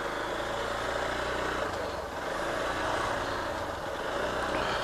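Hero Xpulse 200 4V motorcycle's single-cylinder engine running steadily.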